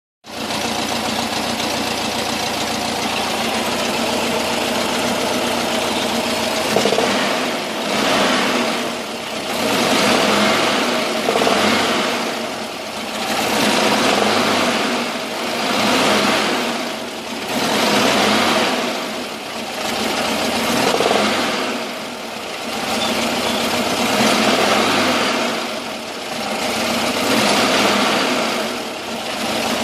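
VW Camper's 1600 twin-port air-cooled flat-four engine running cold with a knock. The owner has ruled out the fan and alternator as its cause. About seven seconds in, the engine sound begins to rise and fall roughly every two seconds.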